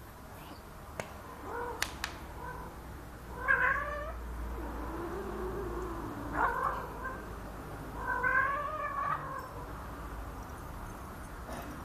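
Domestic cats yowling as a tomcat tries to mate with a spayed female who won't have him. There are four drawn-out cries starting about three seconds in, and the second is lower and longer than the others.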